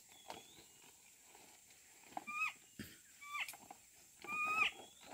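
Three short, high-pitched animal cries, spaced about a second apart. Each has a rough onset and a brief pitched tail that dips at the end. A couple of sharp clicks sound between them.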